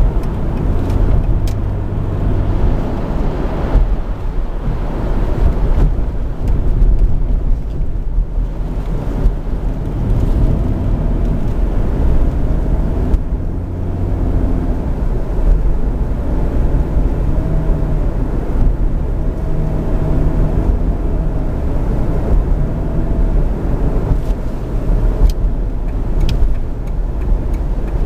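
Cabin noise inside a Jeep Grand Cherokee at highway speed: a steady drone of road, tyre and engine noise, with a faint wavering whine through the middle stretch.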